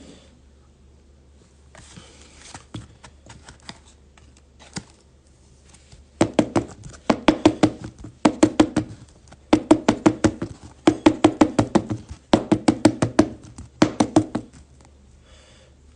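Hands rapping on a tabletop in quick runs of sharp taps. There are about seven bursts of roughly a second each, starting about six seconds in, after a few faint handling clicks.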